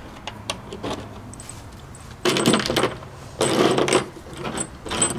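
Metal hand tools such as wrenches clinking and rattling as they are handled on a sheet-metal tabletop, in two short bursts about two and three and a half seconds in, with small clicks before them.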